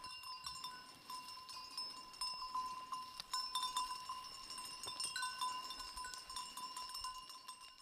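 A metal animal bell, the kind hung on a reindeer's neck, ringing fairly faintly over and over. It keeps one ringing tone, with many small irregular strikes as the animal moves.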